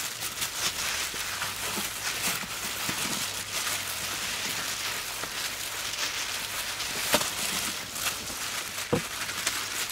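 Plastic-gloved hands rubbing a wet spice-and-herb marinade into a raw cow leg: a steady crackly, squishy rustle made of many small clicks, with a couple of sharper clicks near the end.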